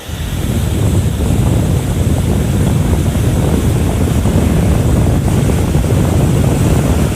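Wind buffeting the microphone: a loud, steady rumbling rush that starts abruptly.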